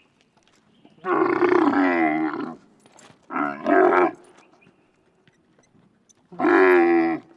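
Camel grunting loudly: three drawn-out grunts. The first starts about a second in and lasts about a second and a half, the second comes in two quick parts, and the third is near the end.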